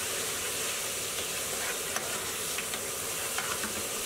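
Garlic-ginger and tomato paste frying in oil in a metal pan: a steady, gentle sizzle with a spoon stirring and scraping through it. The cook judges the paste not yet quite as hot as it should be.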